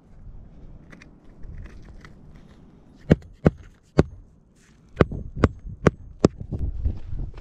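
Roofing hatchet striking nails into asphalt shingles: three blows, a short pause, then four quicker, evenly spaced blows.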